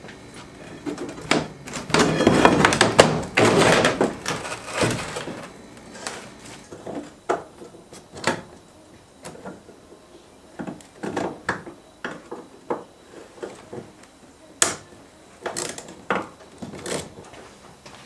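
Work on a small plastic boat's deck and aluminium frame: a few seconds of scraping and rattling about two seconds in, then scattered knocks and clunks as parts are handled and worked loose.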